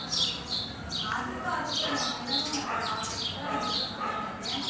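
A flock of house sparrows chirping, a steady run of short, falling chirps, about two or three a second.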